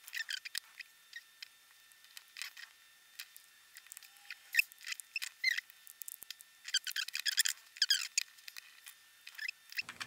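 Scattered small clicks, scrapes and squeaks from hands handling and fitting together the small plastic case of an iRiver E100 MP3 player.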